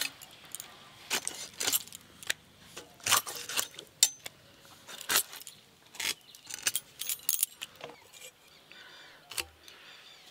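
Sharp, irregular clicks and crunches of a rohu fish being cut into steaks on a bonti blade, with light metallic clinks, sometimes several a second. They thin out to a few faint knocks in the last few seconds.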